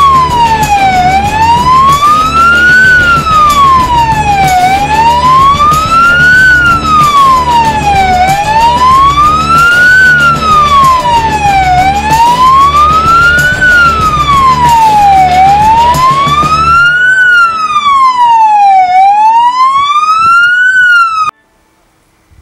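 Electronic siren of a Ford Transit fire rescue vehicle sounding a slow wail, its pitch rising and falling smoothly about every three and a half seconds. It cuts off abruptly about a second before the end.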